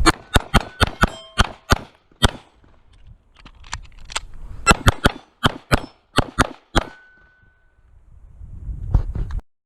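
Luger pistol fired in two quick strings of shots, about nine in the first two seconds, then a pause and another dozen or so over the next three seconds. A few shots are followed by a short metallic ring.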